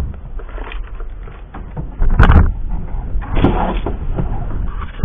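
Handling noises: a few knocks and scrapes, the loudest about two seconds in, over a steady low rumble.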